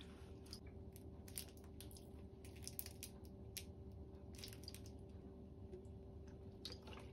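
Faint pouring and dripping of liquid seasonings from a bottle into a metal measuring spoon and a glass container, with small scattered clicks and taps, over a low steady hum.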